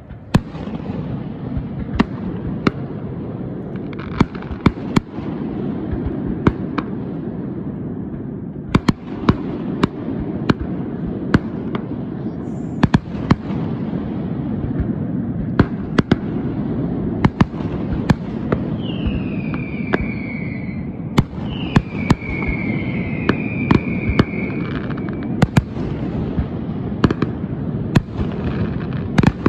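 Fireworks display heard from a distance: a continuous low rumble of bursting shells with many sharp bangs and cracks scattered throughout. A few falling whistles come about two-thirds of the way through.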